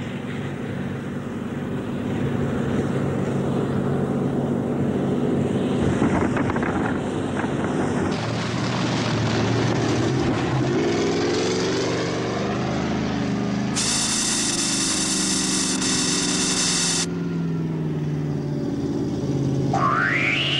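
The Overlander, a huge futuristic land train, rumbling steadily as it travels, a sci-fi vehicle sound effect. About two-thirds of the way in, a high electronic whine cuts in for about three seconds and stops suddenly. Near the end an electronic tone rises sharply and then holds.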